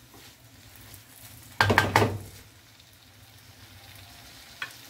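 Shredded vegetables and chicken sizzling faintly in a non-stick wok as they are stir-fried. A little under two seconds in, a quick run of spatula strokes scrapes against the pan, the loudest sound, and there is a single light tap near the end.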